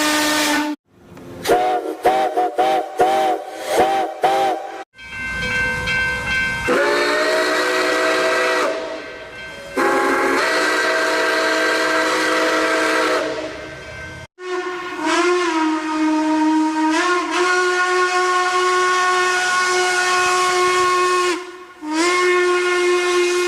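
A series of AI-generated steam train whistle sounds spliced together with abrupt cuts: long chime-like whistle blasts with a hiss, several sliding up in pitch as they start, and one stretch of quick short toots about two seconds in.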